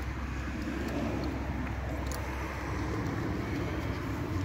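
Bicycle rolling along a dirt forest trail: a steady rumble of tyre and wind noise, with a few faint ticks.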